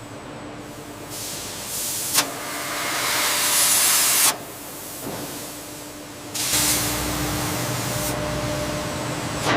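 Loud hissing, like a jet of air or spray, in two long stretches. The first swells, has a sharp click about two seconds in, and cuts off suddenly. The second starts about six and a half seconds in with a low rumble under it and runs on steadily.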